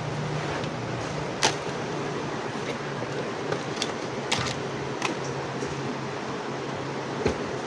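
Several sharp clicks and small taps over a steady background hiss, the loudest about a second and a half in and again near the end.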